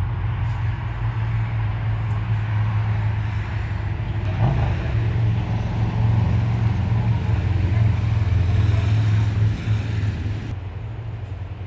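Road traffic passing close by: a vehicle engine's low hum and tyre noise that grows louder through the middle and then fades. An even hiss rides over it and stops abruptly near the end.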